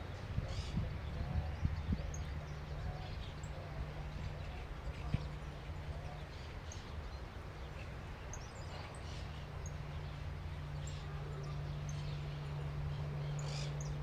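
Outdoor ambience: scattered short bird chirps over a steady low rumble, with a few soft thumps in the first couple of seconds.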